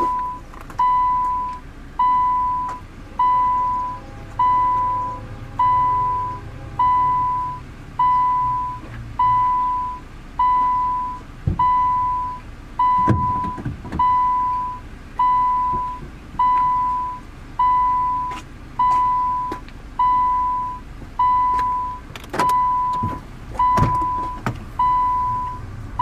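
An electronic warning chime beeping about once a second, each beep a single steady tone. There are a few soft knocks about halfway through and near the end.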